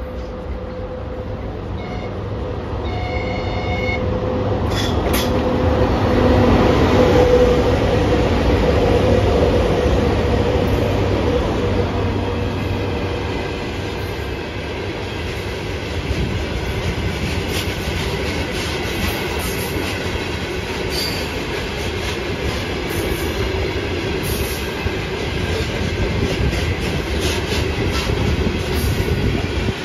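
A VL80S electric locomotive hauling a freight train gives a short, quiet whistle about three seconds in, then passes with a swelling rumble that peaks around seven seconds. A long string of open freight wagons follows, rolling by with wheels clicking over the rail joints.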